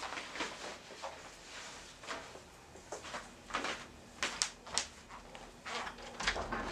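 Soft, irregular rustles and scuffing steps of a person getting up from a sofa and walking across a room, a string of short scuffs with the loudest pair a little after the middle.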